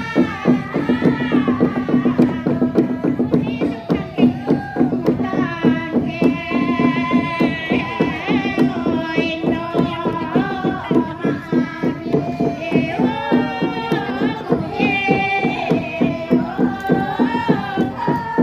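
A women's voice sings a pa'katia chant through a microphone, a slow melody that glides and wavers on long ornamented notes. Beneath it there is a steady low drone and a fast, even run of clicks.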